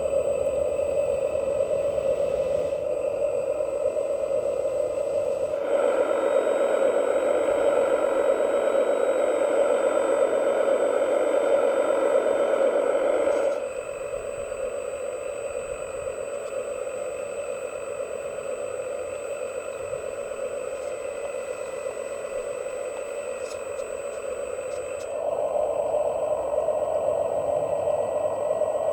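Radio-controlled model truck's motor running steadily with a hum. It gets louder about six seconds in, drops back about halfway through, and rises again near the end.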